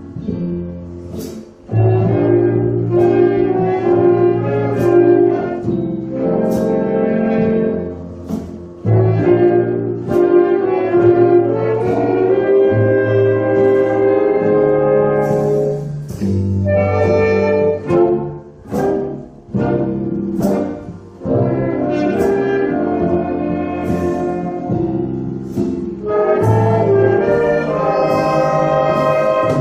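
Big band of saxophones, trumpets and trombones with piano, double bass and drums playing a jazz tune: held brass and reed chords over a bass line, in phrases with brief breaks between them.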